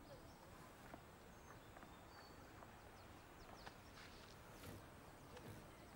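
Near silence: faint ambience with a few soft, high bird chirps and light ticks.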